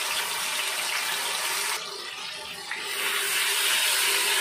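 Ginger-garlic paste sizzling in hot oil with cumin seeds and whole spices, a steady hiss of frying. It dips briefly about two seconds in, then grows louder as the paste is stirred in with a wooden spoon.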